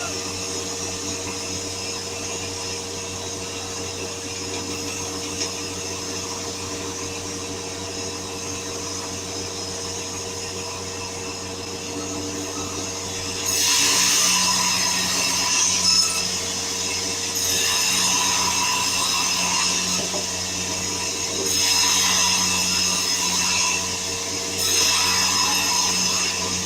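Sawmill machinery running with a steady hum. About halfway through, a power saw starts cutting wood: four louder cuts of two to three seconds each, one after another.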